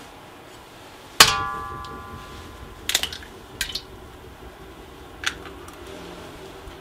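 A raw egg strikes a metal wok with a sharp clang, and the wok rings for about a second as it dies away. A few seconds later come several short, sharp cracks of eggshell breaking over the wok, with one more crack near the end.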